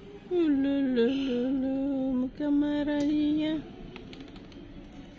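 A person humming two long, steady notes: the first lasts about two seconds and the second just over a second.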